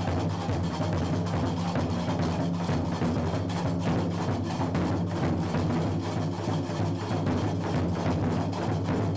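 Gnawa ritual music: krakeb iron castanets clacking in a fast, even rhythm over the deep beat of large barrel drums struck with sticks.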